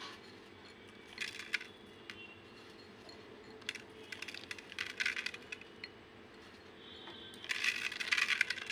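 Crisp sev sprinkled by hand onto a raj kachori and a plate, the small crunchy strands crackling and pattering as they fall, in three bursts: about a second in, around four to five seconds in, and near the end.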